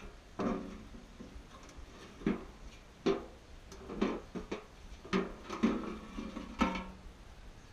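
About eight irregular metal clanks and knocks from the sheet-metal head and sails of an Aermotor windmill, each ringing briefly.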